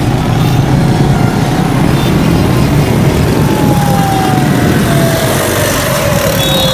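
Motorcycle riding through city traffic: a steady, loud mix of engine and rushing wind on the microphone. A thin tone slowly falls in pitch over the second half.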